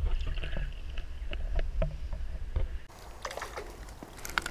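Muffled underwater sound of a shallow stream picked up by a submerged camera: a low rumble with scattered clicks and knocks. About three seconds in it switches to the open-air sound of the brook, quieter, with a few sharp clicks.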